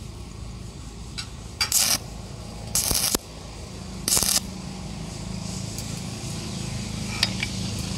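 Arc welder tacking steel truss members: three short crackling bursts of the arc, each about a third of a second long, with a steady low hum underneath.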